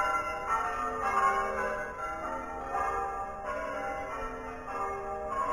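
Church bells ringing: a continuous run of strikes on several bells of different pitches, each ringing on into the next.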